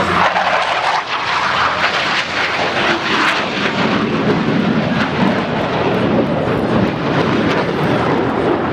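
Blue Angels F/A-18 Hornet jets flying over the air show, a loud, steady rush of jet engine noise.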